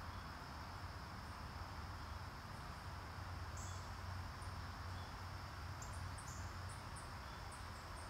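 Faint ambience of insects and small birds: a steady high insect buzz, with short, very high bird chirps from about halfway through that come a few times a second near the end.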